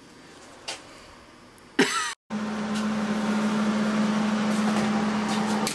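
Air compressor running with a steady loud hum and a low drone, cutting in suddenly about two seconds in, after a short quiet stretch with a brief vocal sound.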